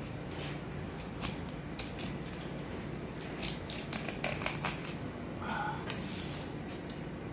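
A filleting knife cuts a large olive flounder's fillet away from the bones, the blade ticking and crackling over the fin rays in irregular clicks. The clicks come thickest about three and a half to four and a half seconds in, over a steady low hum.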